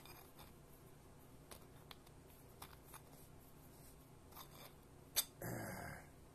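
Faint scattered clicks and cloth rubbing as a rag is worked around a MIG welding gun's nozzle to clear spatter from the tip. A sharp click comes about five seconds in, followed by a brief rustle.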